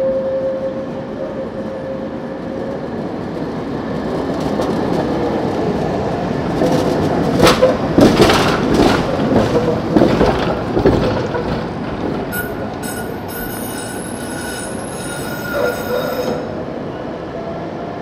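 Tatra T2 tram passing close: a steady whine fades at first, then a run of sharp wheel clatter over the rail joints, loudest as it goes by. A high-pitched wheel squeal follows for a few seconds as it moves away.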